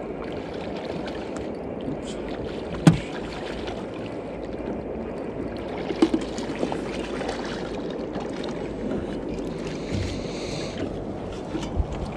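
Steady wash of river water and wind around a small fishing boat while a walleye is played to the boat and netted. A sharp knock about three seconds in, a few lighter clicks around the middle, and some thuds near the end, as the fish comes aboard in the landing net.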